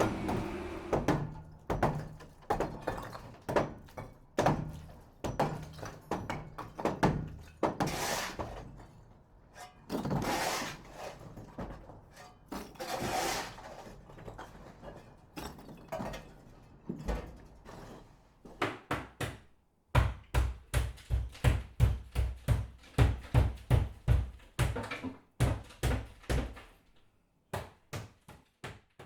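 A series of thuds and knocks, irregular at first, then settling into a steady run of heavy thuds at about two a second in the last third before stopping.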